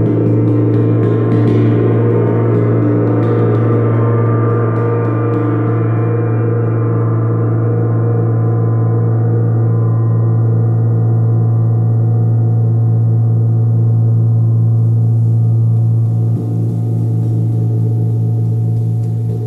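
Tuned moon gong played with a felt mallet at its centre, ringing with a deep steady hum around 100 Hz. Its brighter upper overtones, lit by light mallet strokes, fade out over the first six seconds or so, leaving the low fundamental sounding on.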